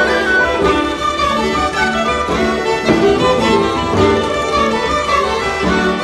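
Instrumental background music: a fiddle-led tune over a steady low accompaniment.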